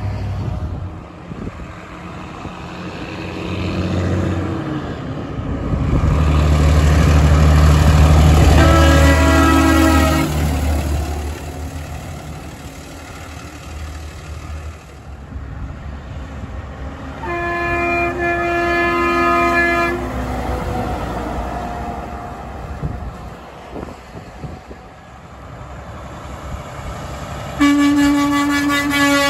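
Semi trucks with diesel engines pulling past and sounding chord-type air horns three times. The first blast comes over the loudest engine pass, about a third of the way through. The second, a few seconds long past the middle, is the Kenworth K100E's Grover 1609 air horn. The third, starting near the end, is the Kenworth W990's Hadley H00293PC air horn.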